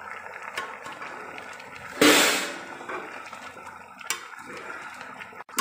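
Rice and chicken broth bubbling in a metal pot while a metal spoon stirs it, clicking against the side of the pot a few times. About two seconds in there is a short, loud burst of hissing noise.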